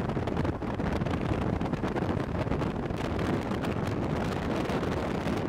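Wind buffeting the microphone: a steady, fluttering rush of noise, heaviest in the deep end, with no tones in it.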